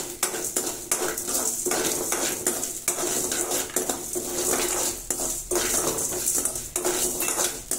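Metal ladle stirring and scraping roasting lentils, rice, curry leaves and rock salt around an aluminium kadai, a continuous run of scraping strokes with the grains rattling against the pan.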